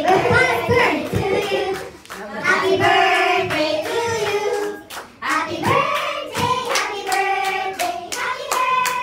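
Women's voices singing a song into microphones, with hands clapping along in time.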